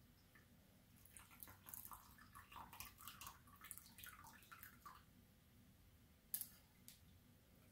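Beet dye dripping and trickling from an upturned saucepan and strainer into a glass bowl of dye, a run of small plinks and splashes, then one sharp metal clink about six seconds in.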